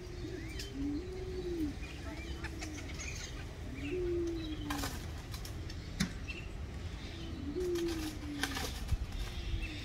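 Doves cooing repeatedly, each a low rising-then-falling coo about a second or so apart. Small birds chirp higher up, and there are a few sharp clicks.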